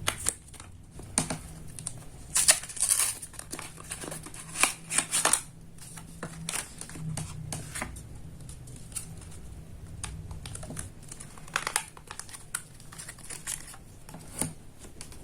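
Packaging of a laptop RAM stick crinkling and rustling in irregular bursts as it is handled and opened, over a faint low hum.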